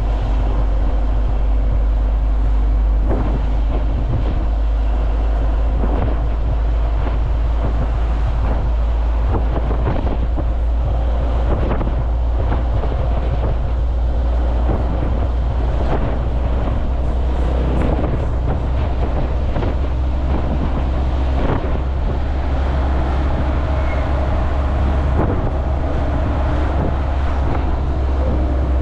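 Steady low rumble of a vehicle travelling along a road, with road and wind noise over it.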